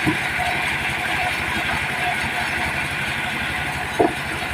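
Diesel engine of a mobile sawmill running steadily with an even, rapid low pulse. Two short louder sounds stand out, one right at the start and one about four seconds in.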